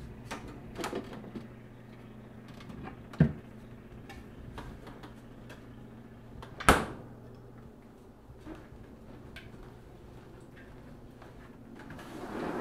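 Refrigerator being rummaged: bottles and cans knocking and clinking against the shelves, a sharp knock about three seconds in, then the loudest thud about seven seconds in as the fridge door is shut. A low hum stops shortly after, and near the end a rushing noise begins as a sliding patio door starts to open.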